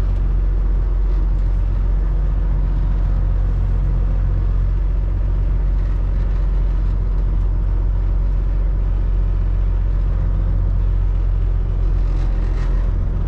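Semi truck's Cummins ISX15 diesel engine running steadily at low revs, a constant low hum heard from inside the cab.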